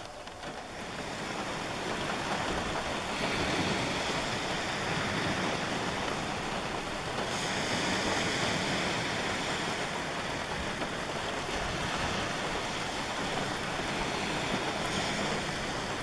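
Sea waves washing onto a pebble shore: a steady rushing that swells louder twice.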